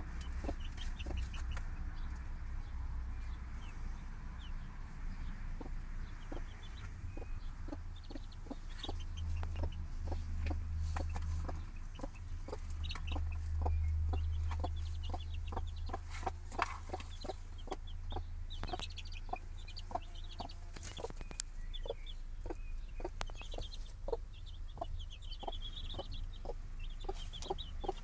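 Mother hen clucking softly and repeatedly, about two short clucks a second, while her chicks peep.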